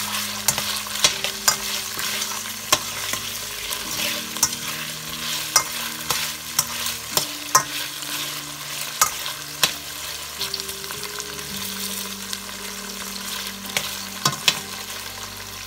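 Cubes of steak sizzling in a frying pan while being stir-fried with a spatula, the spatula knocking and scraping against the pan in frequent irregular clicks over a steady sizzle.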